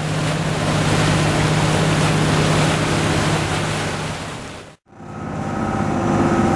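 Water churning and splashing in a boat's wake beside the hull, over the steady low hum of the boat's engine. About five seconds in it drops out briefly, and a steadier hum with a few held tones follows.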